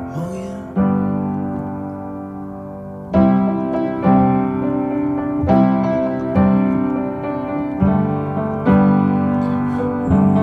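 Background music: slow piano chords, each struck and left to ring and fade before the next, about eight in all.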